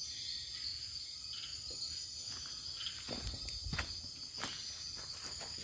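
Night-time insect chorus of the Amazon rainforest: a steady, high-pitched chirring, with scattered light clicks and rustles.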